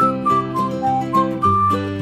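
Background music in a break between sung lines of a pop song: a whistled melody of short held notes over guitar accompaniment.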